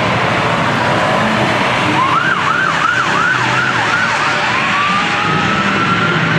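An electronic siren comes in about two seconds in. It yelps, rising and falling about three times a second, then changes to a slower wail. Underneath it is the steady noise of two cars accelerating down a drag strip.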